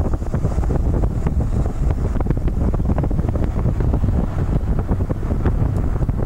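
Wind buffeting the microphone of a camera carried in a moving vehicle: a steady heavy low rumble broken by many small pops and crackles.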